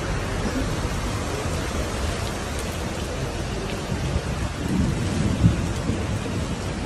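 Heavy rain falling in a steady, dense hiss, with a deep rumble underneath that swells briefly a little past the middle.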